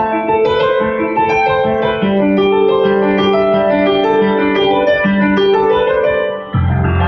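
Yamaha keyboard playing an instrumental passage of held, piano-like chords that change every second or two. Near the end the sound dips briefly and deep bass notes come in under the chords.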